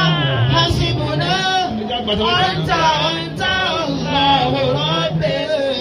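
Young men singing together into a handheld microphone, an Islamic devotional chant, with the melody bending and gliding over a steady low held note.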